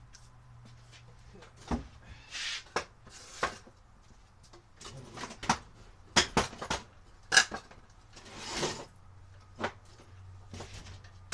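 Objects being handled and moved about: a run of clunks and knocks with a few short scraping slides, over a low steady hum.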